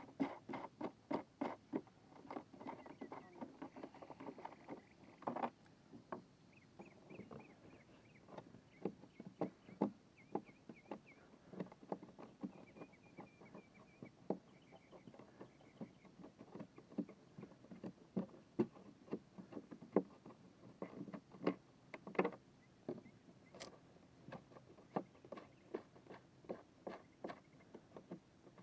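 Irregular clicks and light knocks, several a second, from hands and a screwdriver working the screws and parts of a plastic kayak's pedal-drive well. Faint high squeaks come and go at times.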